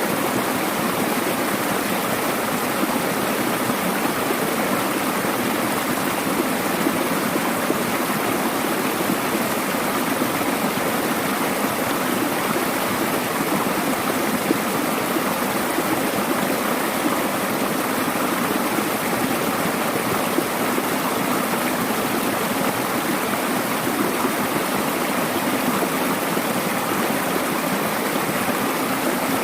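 Mountain valley stream running over rocks, a steady rushing of water with small splashes and gurgles.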